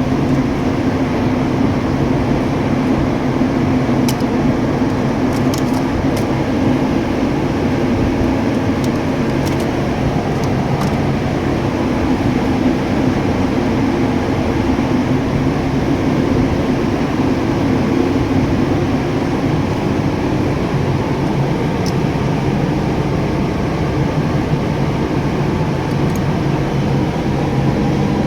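A steady mechanical drone of a running machine, unchanging throughout, with a few faint light clicks.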